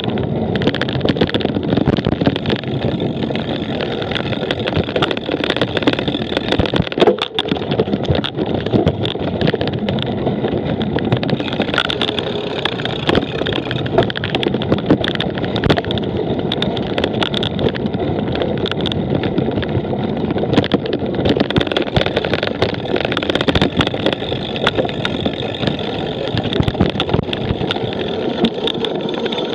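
Wind rushing over the microphone, with constant rattling and knocking from a cyclocross bike being ridden over rough, bumpy ground.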